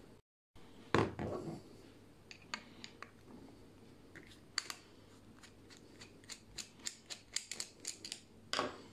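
Flathead screwdriver tip clicking and scraping inside the brass body of a snow foam cannon as it works the small orifice out. There is a louder knock about a second in, then a run of sharp ticks that come faster near the end.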